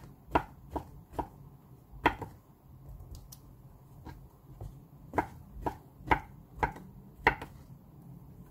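Chef's knife slicing king oyster mushroom on a wooden cutting board: sharp knocks of the blade striking the board, a quick run of four at the start, one or two more about two seconds in, then after a pause five more about half a second apart.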